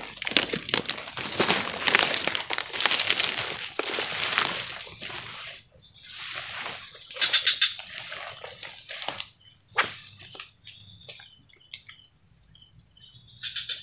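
Rustling and swishing of tall grass as people push through it on foot, with many small crackles and snaps. Loud for the first few seconds, then patchier, with a few faint high chirps near the end.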